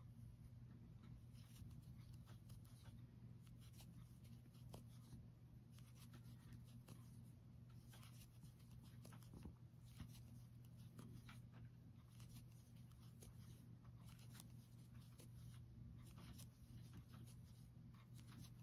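Near silence: faint, irregular soft scratches and clicks of a metal crochet hook drawing yarn through stitches, over a steady low hum.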